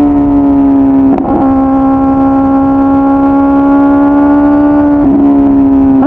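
2009 Kawasaki ZX-10R's 998 cc inline-four with a full aftermarket exhaust, running at a steady high engine speed under way. The engine note holds nearly level, with a short break in it about a second in and another near the end.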